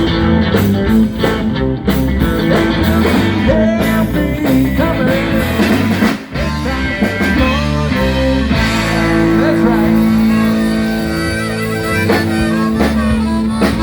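Live blues-rock band playing: electric guitar over bass and drums. There is a brief break about six seconds in, then a long held chord.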